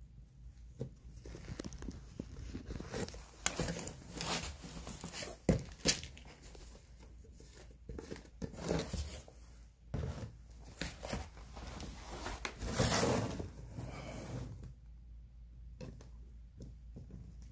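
Irregular clicks, crinkling rustles and crunches, the loudest a few short bursts about five and six seconds in and a longer one near thirteen seconds: a cat eating dry kibble from a ceramic bowl while a jar of kibble is handled.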